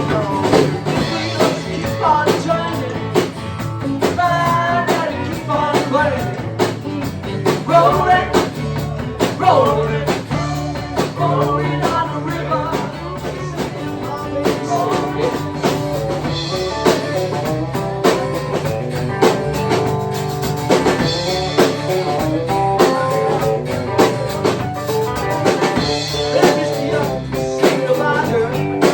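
Live rock band playing: electric guitars, bass and drum kit in a steady beat, with a lead guitar line and some singing.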